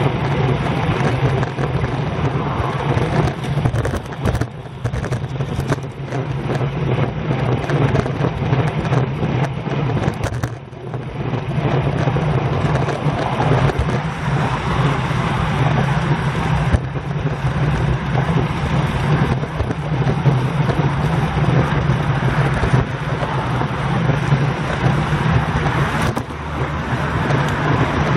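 Wind rushing over a bicycle-mounted camera's microphone at road-cycling speed, about 22 mph, mixed with traffic passing in the adjacent lanes. A steady, loud rush that dips briefly twice.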